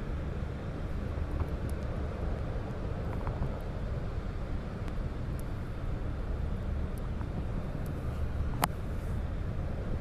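Steady low outdoor background rumble, with a few faint clicks and one sharper click about eight and a half seconds in.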